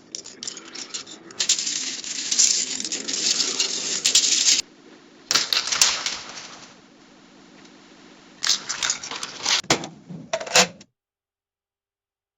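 Money-handling sound effects: three bursts of rattling and clicking, consistent with coins being jingled and handled, with a short ringing clink near the end. The sound then cuts off abruptly.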